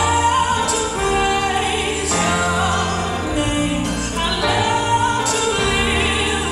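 A song playing: a solo voice singing long held notes with vibrato over sustained bass notes, with cymbal swells every second or two.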